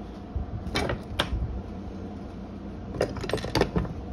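Hand tools clinking and knocking against a wooden tabletop as they are handled: two sharp clicks about a second in, then a quick cluster of clinks about three seconds in.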